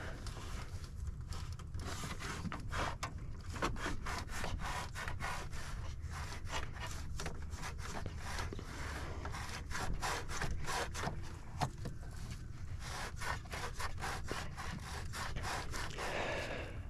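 Quarter-inch-drive ratchet clicking in quick back-and-forth strokes as a nut is run down onto the starter's terminal stud, with some scraping of the tool.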